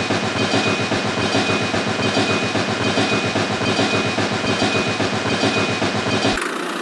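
A small machine running with a rapid, even mechanical clatter and a thin steady whine, cutting off abruptly near the end.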